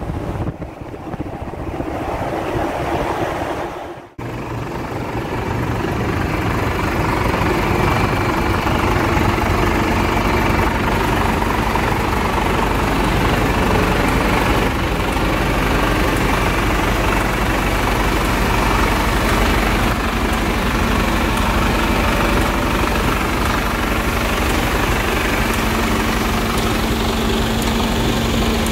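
Wind on the microphone and road noise for about four seconds, then, after a sudden cut, the Mercedes-Benz Arocs 3353 tractor's straight-six diesel running steadily at idle close up, with a steady hum.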